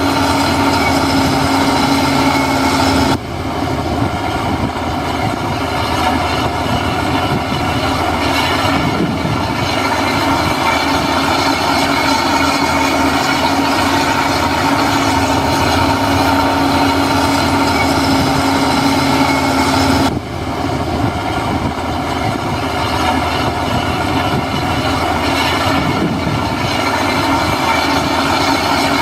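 Diesel engine of heavy earthmoving machinery running steadily with a constant droning tone. The sound dips suddenly about three seconds in and again near the twenty-second mark, then carries on.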